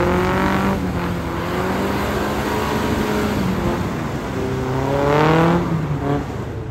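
A 4x4 off-road vehicle's engine revving. The pitch climbs and breaks off about a second in, runs steadier, then rises again in a second, louder rev around five seconds in before dropping back.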